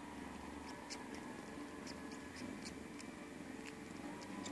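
Tabby kitten sucking on its own paw: soft wet clicks and smacks, irregular at roughly two a second, over a steady low rumble.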